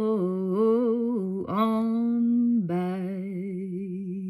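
A woman singing without words in a low, wavering line. About a second and a half in her voice slides quickly up and back down into a steady held note, then drops to a low hummed note that wavers slightly.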